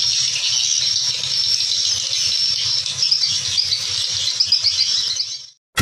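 Dense, continuous high-pitched twittering of swiftlet calls, many chirps overlapping, over a faint low hum; it fades out near the end.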